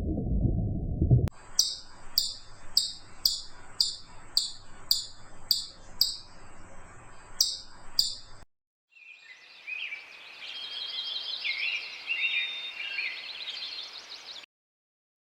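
A low rumble cuts off about a second in. A small animal then gives about a dozen short, sharp, falling high chirps, evenly spaced a little over half a second apart. After a brief gap comes a songbird's warbling song over a background hiss.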